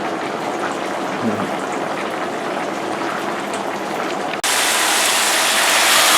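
Steady hiss of a pot boiling on the stove. About four seconds in it cuts abruptly to a louder, brighter hiss of ground beef sizzling in a pan.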